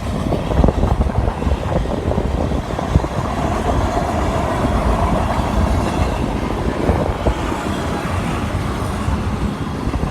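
BNSF freight train's gravel cars and boxcars rolling past at close range: a steady rumble of wheels on rail with repeated clacks as the wheels cross rail joints.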